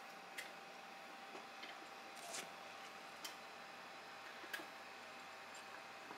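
A metal spoon clicking and scraping against a plastic colander and the rice as rice is scooped and pushed into a raw squid tube: a handful of short, sharp ticks at uneven intervals, one a brief scrape, over faint steady hiss.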